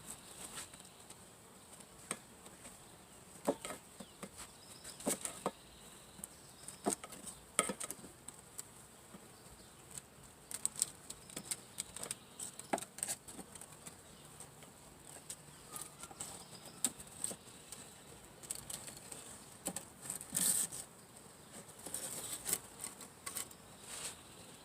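Honeybees from a freshly installed package buzzing and flying around the hive, close past the microphone, with scattered short taps and knocks throughout.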